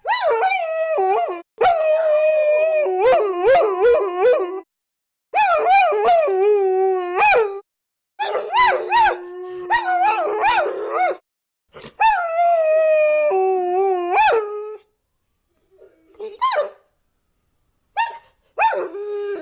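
Several dogs howling together, their wavering howls overlapping in a chorus. They come in runs of a few seconds that stop abruptly between takes, and shorter, fainter yelping howls come near the end.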